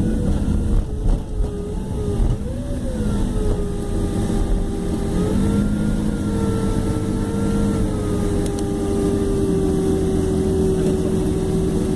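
Airliner cabin noise as the jet slows after touchdown: a deep rumble from rolling on the runway under a steady jet engine hum. The engine tone wavers up and down in pitch over the first few seconds, then holds level.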